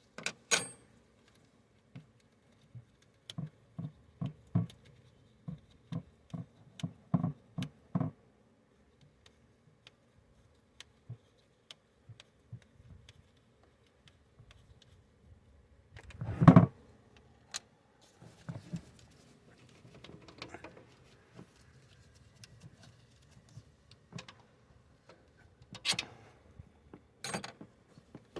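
Scattered metallic clicks and knocks of hand tools and parts being handled during alternator removal, with one heavy thump a little past halfway and two sharp clicks near the end.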